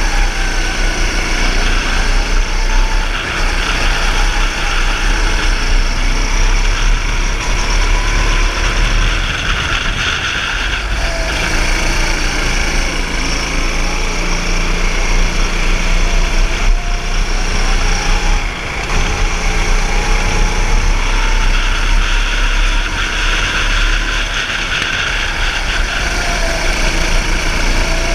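Go-kart engine running at speed, its pitch rising and falling as the kart accelerates and slows through the corners, over a steady low rumble.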